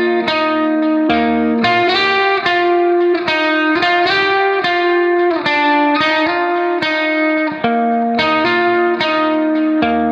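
Instrumental background music: a melody of sharply struck notes, about two a second, each ringing on until the next.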